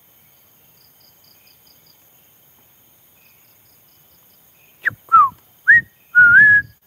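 A person whistling close by in imitation of a bird call: four notes about five seconds in, a short high note, a falling note, a rising note and a longer wavering one. Before them, faint insect chirping.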